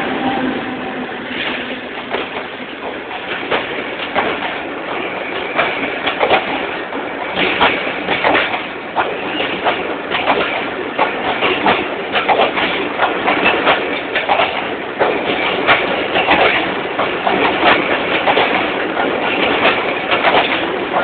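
Passenger coaches of an express train rolling past close by, the wheels clattering over the rail joints in a steady run of sharp clicks and knocks. The diesel locomotive's engine hum fades out about a second in.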